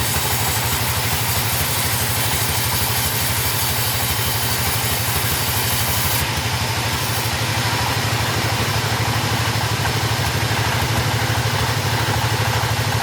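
Two-stroke chainsaw engine running steadily at an even speed, with a rapid, regular pulse.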